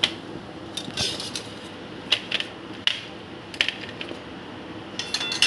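Steel slotted spoon and wire-mesh fry strainer clicking and tapping against a ceramic plate while fried kachoris are moved about. The sharp taps come about once a second, with a quick run of clinks near the end.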